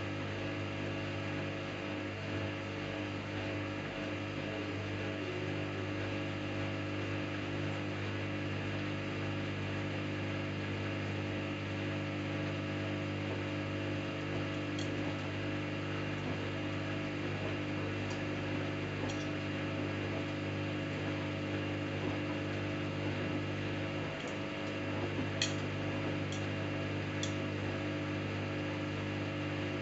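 Samsung Eco Bubble washing machine running a cotton wash cycle: a steady mechanical hum, with a few faint ticks in the second half.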